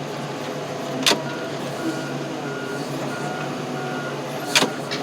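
Heavy machine's engine running steadily, with a backup alarm beeping about twice a second through the middle. Two sharp knocks, one about a second in and one near the end.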